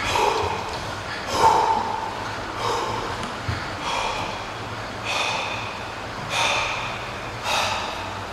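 A man breathing hard, with heavy gasping breaths about once every second or so, recovering from a set of twenty 100 kg barbell squats.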